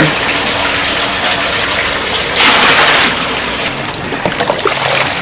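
Water running and splashing, with a louder gush about two and a half seconds in that lasts under a second.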